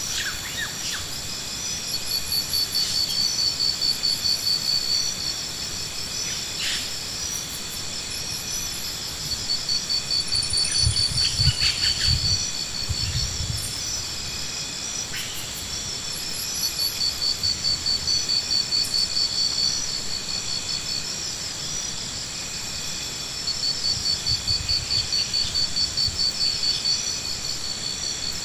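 Insect chorus: a steady high pulsing trill that gets louder in bouts of a few seconds, again and again, with a few short high chirps over it.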